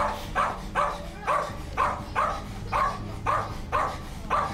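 Small Spitz dog barking nonstop, about two sharp, evenly spaced barks a second. It is forceful, aggressive barking at strangers who have come into the home.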